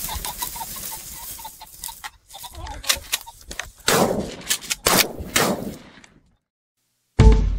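A rooster pheasant cackling with a flurry of wingbeats, then a rapid string of shotgun shots, several with echoing tails, dying away about six seconds in. After a short silence, a loud bass-heavy musical hit starts just before the end.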